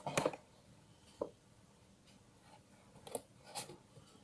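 A few separate light clicks and knocks from handling a small plastic toy vending machine and its squishies, one near the start, one about a second in and two fainter ones near the end.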